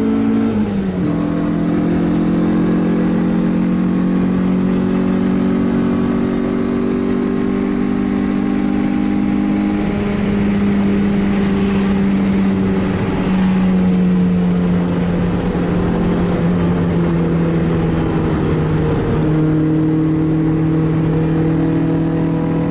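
Mazda MX-5's four-cylinder engine running hard, heard from inside the cabin on track. Its pitch drops sharply about a second in, then holds nearly steady, with wind and tyre noise rising in the middle.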